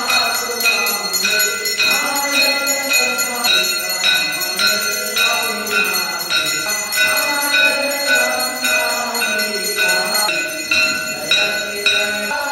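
A brass hand gong struck with a mallet in a steady rhythm of about two strokes a second, each stroke ringing, under voices singing the aarti.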